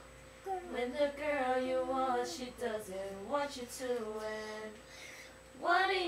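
A young child singing a song without accompaniment, in long held notes; the phrase breaks off shortly before the end, and a new one starts.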